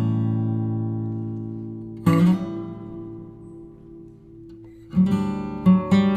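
Background music on acoustic guitar: two chords strummed and left to ring out and fade, then a quicker strummed rhythm from about five seconds in.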